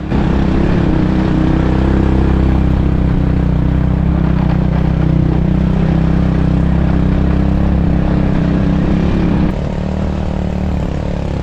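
Motorcycle engine running steadily while under way, easing off about nine and a half seconds in.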